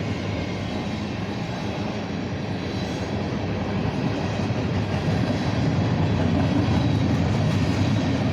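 CSX mixed manifest freight train passing: a steady rumble of the cars rolling by on the rails, growing a little louder about halfway through.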